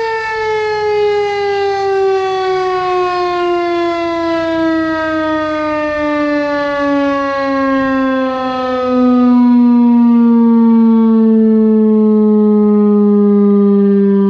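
Federal Signal STH-10 outdoor warning siren winding down, its loud wail falling slowly and steadily in pitch as the rotor coasts down after the test signal. It gets slightly louder about two-thirds of the way through.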